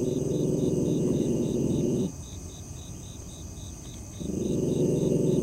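A frightened dog hiding under a shipping container growls long and low. The growl breaks off for about two seconds in the middle and then starts again. Crickets chirp in a steady quick pulse behind it.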